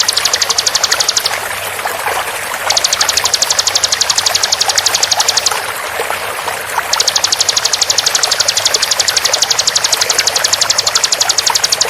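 Bar-winged prinia (ciblek) giving rapid 'tembakan' bursts: fast, evenly spaced sharp notes in three runs. The first is brief at the start, the second lasts about three seconds, and the third begins about seven seconds in and runs on. Under them is a steady rush of flowing water.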